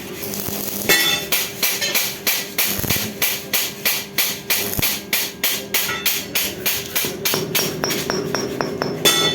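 Rhythmic metallic striking, about three sharp ringing strikes a second, starting about a second in, over a steady hum.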